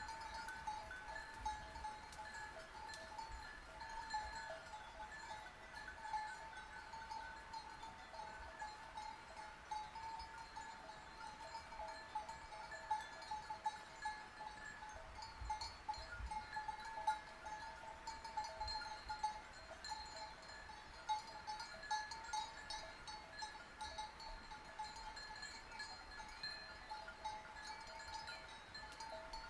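Sheep bells clanking and ringing without a break, their metallic tones jangling.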